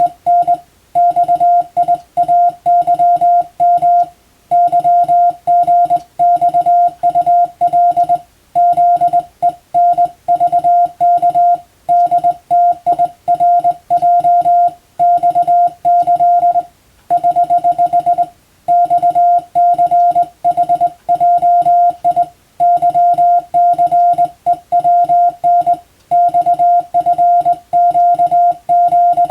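Morse code (CW) sent by an operator as a single steady beep tone keyed rapidly on and off, in runs of dots and dashes broken by short pauses every few seconds. It is telegraphy practice text of Latin-alphabet telegrams, sent for radiotelegraph-exam and amateur-radio receiving practice.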